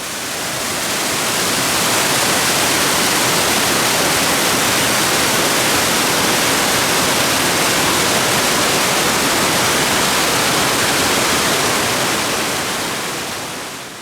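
Steady rushing of water, a continuous hiss with no distinct splashes. It fades in over the first two seconds and fades out near the end.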